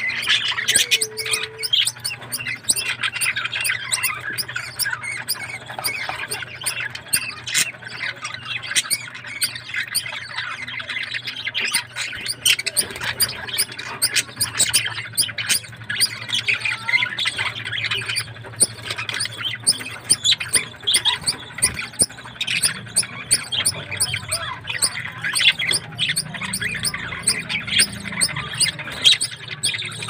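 Budgerigars chattering: a steady stream of short chirps and squawks from several birds.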